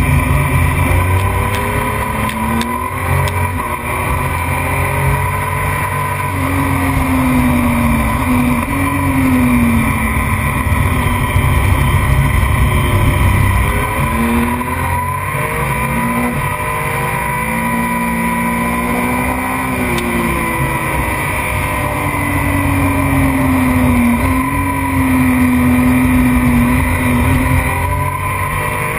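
Racing motorcycle engine at track speed, its note climbing and dropping again and again through throttle and gear changes, under heavy wind buffeting on the microphone.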